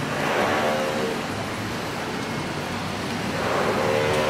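Street traffic: cars running by on a narrow street. The sound swells twice, once shortly after the start and again near the end, each time with a steady engine hum.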